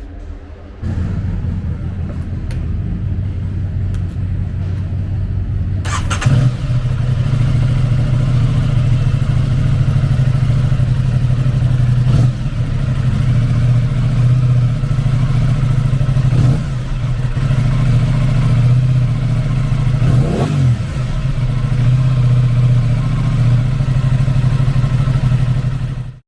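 2022 Aprilia Tuono 660's 659cc parallel-twin engine idling, with four quick throttle blips that rise and fall about 6, 12, 16 and 20 seconds in. It cuts off abruptly at the end.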